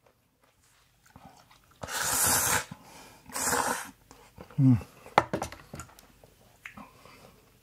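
A person slurping ramen noodles twice in long, noisy slurps, followed by a short low hum and a few sharp clicks.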